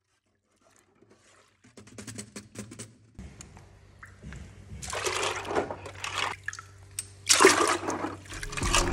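Water sloshing and splashing as a gloved hand stirs a wire basket of metal nixie tube bases in a tank of soapy wash water. It is loudest in two bursts, about five and seven and a half seconds in, over a low steady hum.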